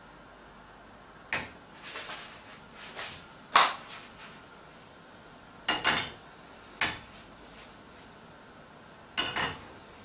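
Kitchen utensils clinking and knocking against a frying pan and a mixing bowl: short, sharp clatters every second or two, the loudest about three and a half seconds in, over a faint steady hiss.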